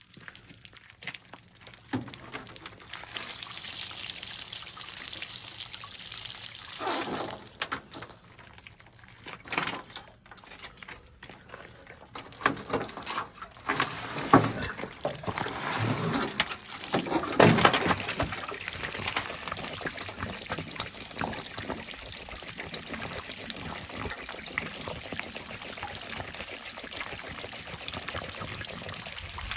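Water pouring and trickling as a water heater's tank is drained, with a steady hiss and a few irregular knocks and thumps.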